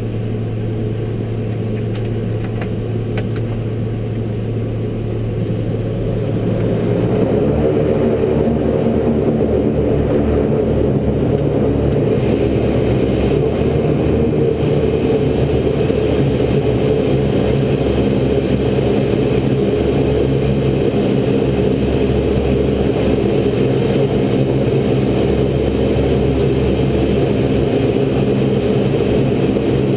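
Twin General Electric CT7 turboprop engines and propellers of a Saab 340, heard from the cockpit as a steady droning hum. About seven seconds in, the drone grows louder and deeper, with a fuller layered tone, and stays there.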